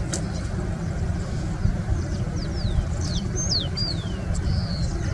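Birds calling over a steady low rumble: several short, falling whistled notes come in the second half.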